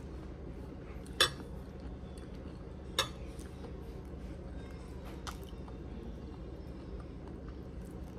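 Tableware clinking during a meal: two sharp clinks about a second and three seconds in, and a fainter one later, over a steady low hum.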